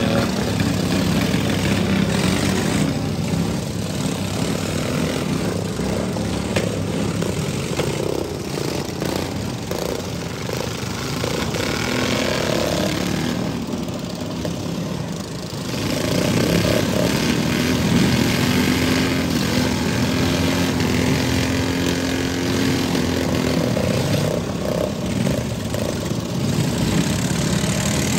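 Several pro-modified riding lawn mower engines running together, their pitches rising and falling as they rev. The sound dips briefly about halfway through.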